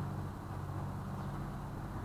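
A canal motor boat's engine running steadily at cruising speed: a low, even drone.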